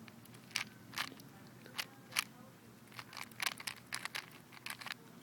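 Plastic clicks and clacks of a Rubik's cube being turned: a dozen or so quick layer turns, irregularly spaced, coming faster in a run about three seconds in.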